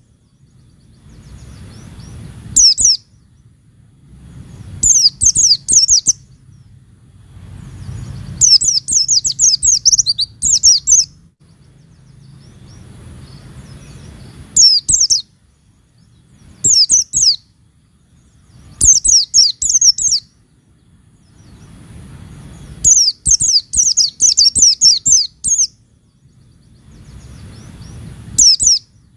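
White-eye (pleci) singing in bursts of rapid, high twittering notes, one phrase every few seconds, some short and some lasting several seconds. A faint low rumble rises between phrases.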